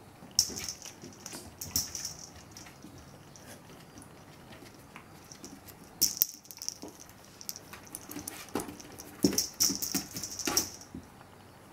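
A chihuahua puppy's claws clicking and skittering on a hardwood floor as it scampers after and pounces on a small ball, in several quick flurries of pattering.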